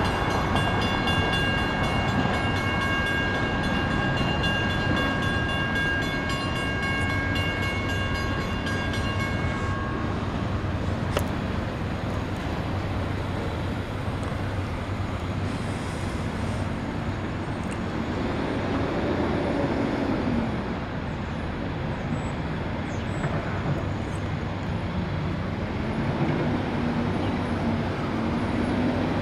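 Wisconsin and Southern freight train rolling past with a steady rumble. A level-crossing bell rings steadily over it for the first ten seconds or so, then stops.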